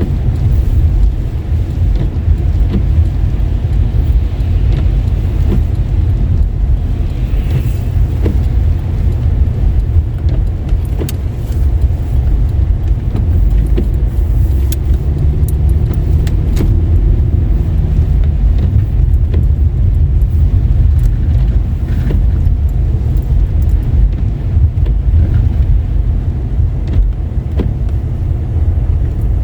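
A car driving, with a steady low rumble of tyres and engine and scattered faint ticks.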